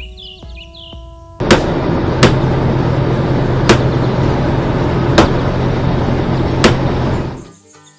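Heavy machinery sound effect: a loud engine-like hum starts suddenly about a second and a half in, with a sharp bang about every one and a half seconds (five in all), and stops shortly before the end. It fits an excavator's hydraulic drill or hammer at work.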